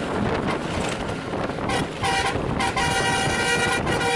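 Moving bus with steady engine and road noise. A horn honks twice, a short blast about two seconds in, then a longer one of over a second.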